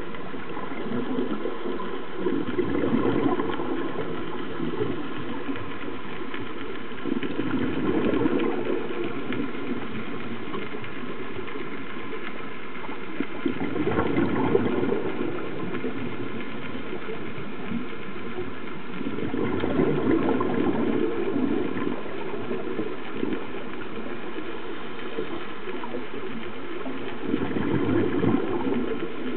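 A scuba diver's regulator breathing underwater: the exhaled bubbles rumble and gurgle in five bursts of about two seconds, one every five to six seconds, over a steady hiss.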